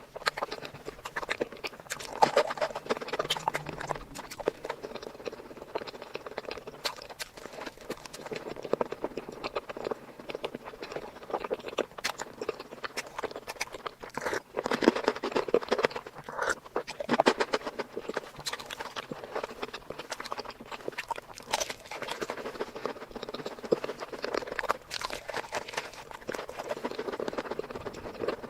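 Close-miked chewing and mouth sounds of someone eating sweets: a continuous, irregular run of small wet clicks and smacks, denser around the middle.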